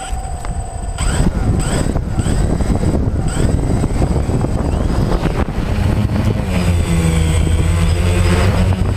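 DJI Phantom quadcopter's motors start up about a second in after a brief tone, then its propellers run steadily and loudly with a whine, heard up close with heavy low rumble from high wind.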